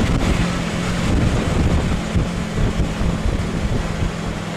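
Engine of an open-sided tour bus running with a steady low hum as it climbs a mountain road, with wind rushing over the microphone.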